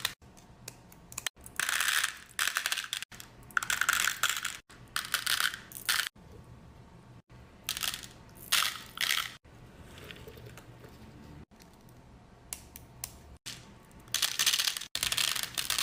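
Loose round beads clattering as handfuls are dropped from the hand back into a compartment of a plastic bead organizer box. The rattling comes in about five separate bursts, with quieter gaps between.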